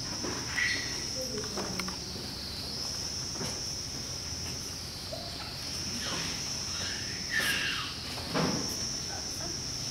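A steady, high-pitched drone of chirring insects, slowly wavering in level, with a few brief louder sounds over it near the start and about seven and eight seconds in.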